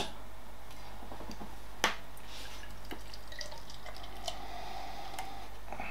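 Beer poured from a can into a tilted glass, a faint liquid pour starting about four seconds in, after a single sharp tap or clink about two seconds in and a few faint ticks.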